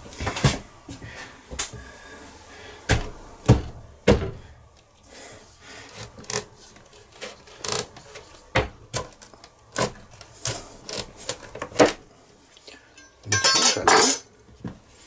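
A large kitchen knife cutting through a whole pumpkin's hard rind on a wooden board, with a string of sharp knocks and clicks as the blade is driven in and levered. Near the end a dense cracking as the pumpkin is pressed and splits into halves.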